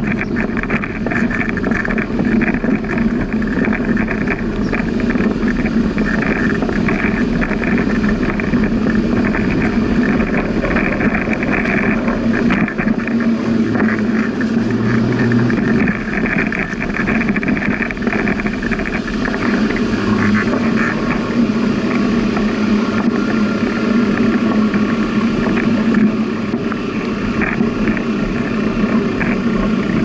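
Steady rushing noise of a bicycle being ridden along a path: wind on the microphone and tyre noise, unbroken throughout.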